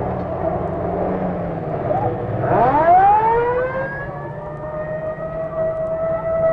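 American police vehicle running, then its mechanical siren winds up about two and a half seconds in, rising quickly from a low growl to a steady high wail.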